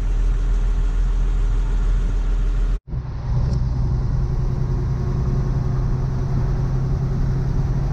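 Converted horsebox's engine and road noise heard from inside the cab while driving, a steady rumbling drone. It drops out for an instant about three seconds in, then carries on with a steadier low hum.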